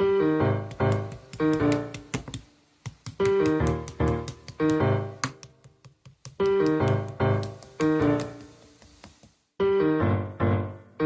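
Piano playing the introduction to a pop ballad: chords and melody notes struck in short repeating phrases, each ringing out and dying away, with brief pauses between phrases and no singing yet.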